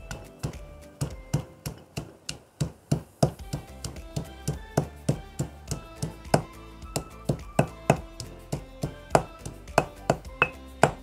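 Stone pestle pounding shallots and garlic in a granite mortar: sharp, regular knocks about three a second, under upbeat background music.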